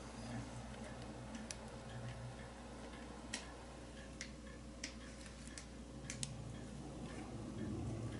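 Faint, irregular clicks and ticks of a thin pointed tool working against a diecast metal toy car body while pushing out its soft plastic roof, over a steady low hum. Handling noise grows near the end.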